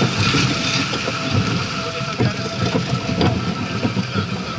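Wind on the microphone and water rushing past the hull of a sailing yacht under way, with scattered clicks and knocks from deck gear as the crew work the boom and sheets.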